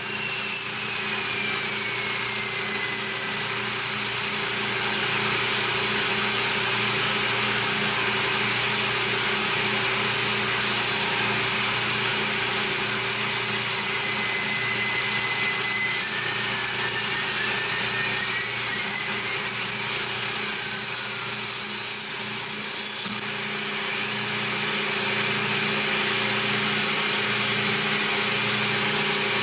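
CNC milling machine running a cut: a steady spindle and cutting hum, with high motor whines that glide down in pitch in the first few seconds and rise then fall again later, the second cutting off abruptly about 23 seconds in.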